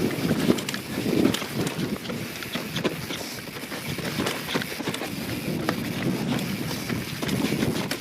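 YT Jeffsy 27 mountain bike ridden over a rough dirt trail: tyres rolling on dirt and roots with a steady rumble, broken by frequent short clicks and knocks as the bike jolts and rattles.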